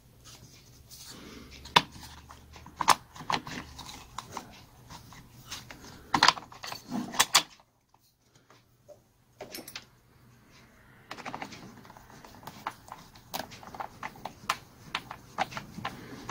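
Irregular clicks, taps and knocks of a chainsaw's plastic and metal parts being handled and fitted back together by hand, with a brief near-silent pause about eight seconds in.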